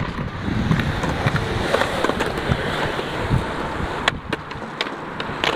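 Skateboard wheels rolling on rough concrete. Several sharp clacks near the end as the board pops and hits a concrete ledge.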